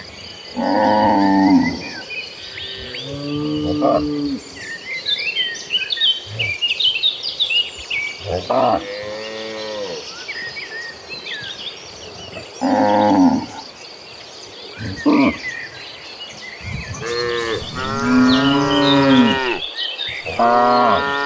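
Cattle mooing, one long low call after another, about six moos in all, the longest and loudest near the end. Faint high chirps are heard behind them in the middle stretch.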